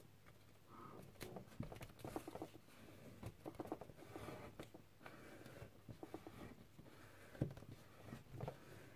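Faint, irregular rustling and soft crackles of a sheet of paper being folded and its creases pressed down by fingers, with a slightly louder tap about seven seconds in.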